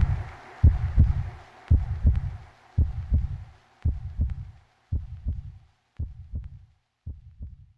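Heartbeat sound: low double thumps, about one pair a second, growing steadily fainter as it fades out, over a faint whooshing hiss that fades away too.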